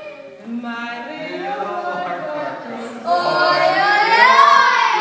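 Voices singing a children's-song-style tune. About three seconds in the singing gets louder and slides up in pitch, then falls again.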